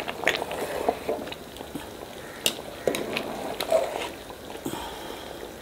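A metal spoon stirring basmati rice and chicken in a large pot of boiling water, knocking and scraping against the pot several times, with the water bubbling steadily underneath.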